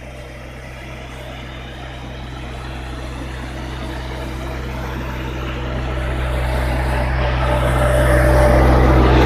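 A motor vehicle approaching, its engine hum growing steadily louder.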